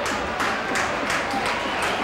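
Football crowd in the stand: a general din of voices with hand clapping, about three claps a second.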